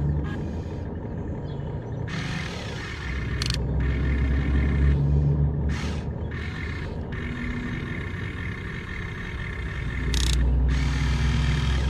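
Huina 1592 RC excavator's electric arm motors and metal gears whirring in several bursts as the boom and bucket move, over a steady low rumble.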